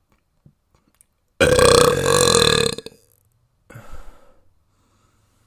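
A person burping: one long, loud belch lasting about a second and a half, starting about a second and a half in. About a second after it ends comes a short, quieter noisy sound.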